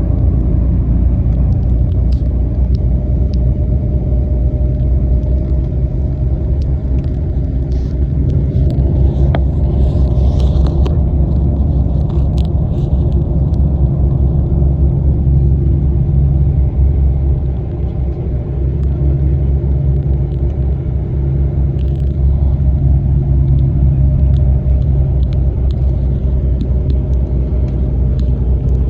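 Steady engine and road rumble heard inside a moving bus, with small rattles and clicks over it; the rumble eases briefly a little past halfway, then picks up again.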